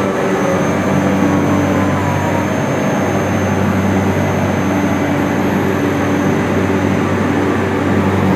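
York YCIV screw chiller running: a loud, steady machinery drone with a low hum, and a faint whine falling in pitch over the first few seconds.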